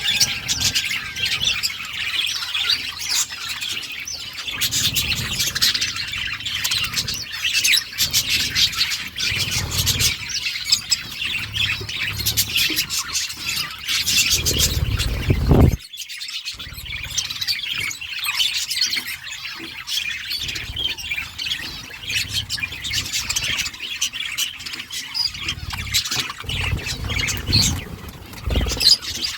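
A flock of budgerigars chattering with dense, overlapping chirps and squawks, broken by a brief drop about halfway through.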